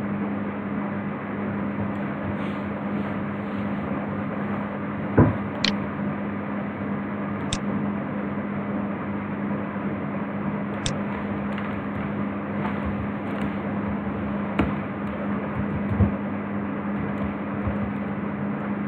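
Steady background hum and hiss, with about half a dozen short, sharp computer mouse and keyboard clicks scattered through it while text is selected and typed in an editor.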